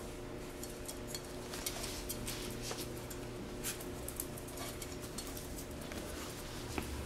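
A chihuahua's claws ticking on a tile floor and its body rustling through a pile of plush toys as it searches, giving a string of light, irregular clicks.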